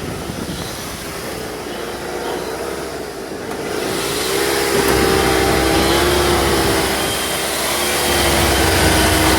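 Ford LTD engine running at idle, with a steady rushing noise and wavering hum that grow louder about four seconds in.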